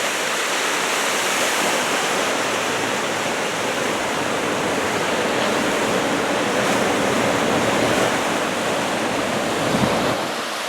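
Ocean surf from a large typhoon swell: waves breaking and white water washing in, a steady rushing noise.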